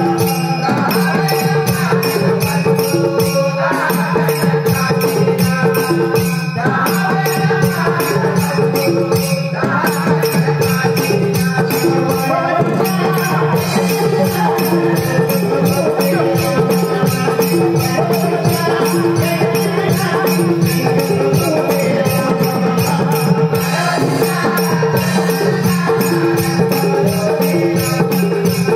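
Konkan Naman folk song: a troupe of men singing together over a steady beat of jingling percussion, with notes held under the voices.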